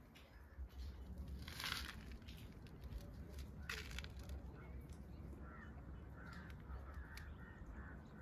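Quiet open-air ambience with a steady low wind rumble on the microphone. Two short, harsh bursts of noise come about two seconds apart in the first half, and faint scattered calls follow later.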